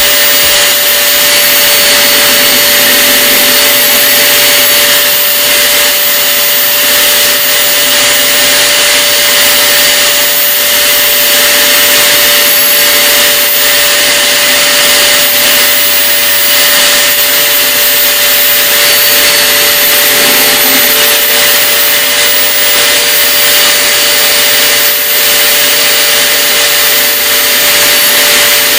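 Electric drill spinning a homemade sanding disc, a loud steady motor whine over hiss; its pitch dips briefly about twenty seconds in.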